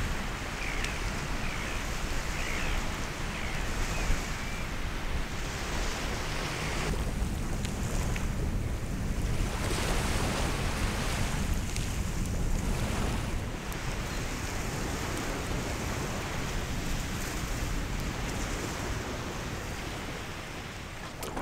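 Small waves washing onto a sandy beach, a steady rush of surf, with wind buffeting the microphone.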